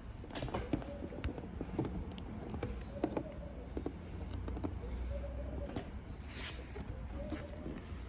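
Irregular light clicks and knocks from a hard-shell motorcycle tour pack's lid and latch being pressed and handled by hand.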